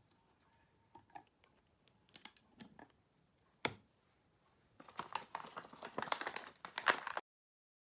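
Close handling sounds: scattered light taps and clicks, one sharper click about three and a half seconds in, then a couple of seconds of dense crinkling and rustling that cuts off abruptly.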